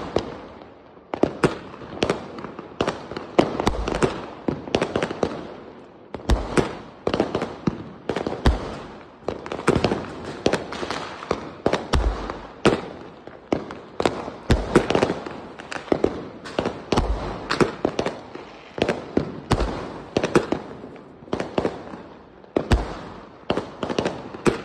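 A 120-shot aerial fireworks cake firing in quick succession: repeated sharp bangs of shots launching and bursting overhead, with crackling between them.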